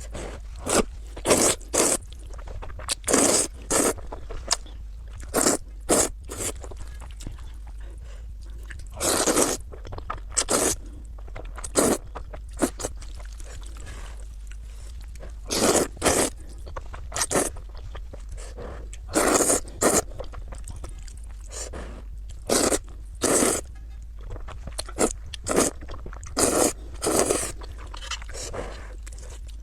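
Close-miked eating: irregular crunching, biting and wet chewing of food, each bite or chew a short burst, coming in uneven clusters with pauses between them.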